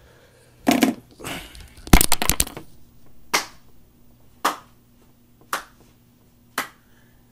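A series of sharp knocks: a few close together at first, then single ones about once a second, over a faint steady hum.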